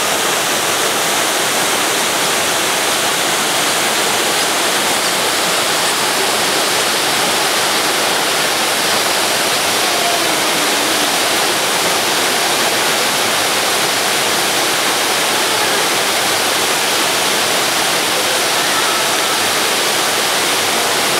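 Minoo Falls, a waterfall about 33 m high, pouring steadily: a loud, even rush of falling water.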